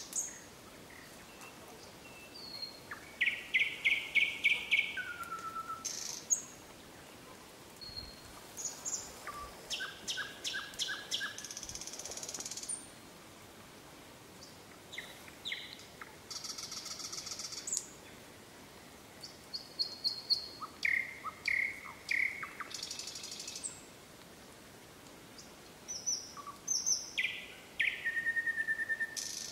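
A songbird singing at night: varied phrases of fast repeated notes, trills and clear whistles, each a second or two long with short pauses between them, over a faint steady hiss.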